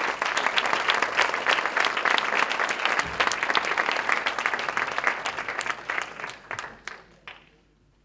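Audience applauding, a dense patter of many hands clapping that thins out and dies away about seven seconds in.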